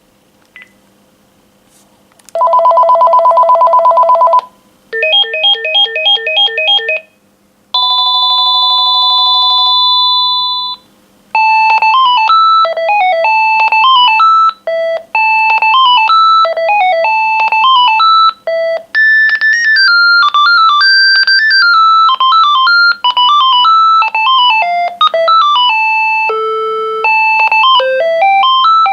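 Panasonic KX-TG5210 cordless phone handset sounding its ringtones in turn. First comes a fast warbling trill, then a ring of quick pulsed beeps, then a steady held tone chord. Near the middle it changes to a beeping electronic melody that carries on.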